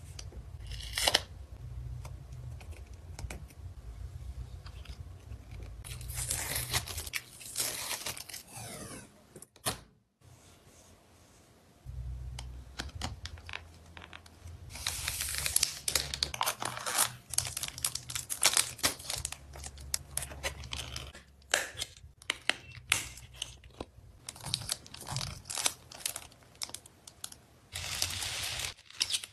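Photocard packing handled close to the microphone: packaging crinkling and tearing, with many small clicks and taps in irregular bursts and a brief quieter stretch about ten seconds in.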